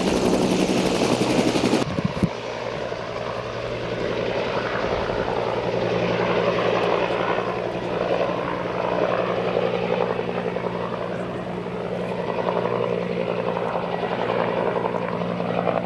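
Aircraft engines running with a steady droning hum. About two seconds in, a louder rushing noise cuts off abruptly and the steadier drone continues.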